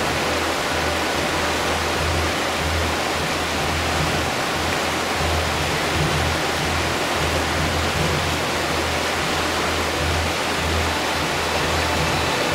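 Whitewater river rapids rushing, a steady full hiss of fast water, with background music underneath.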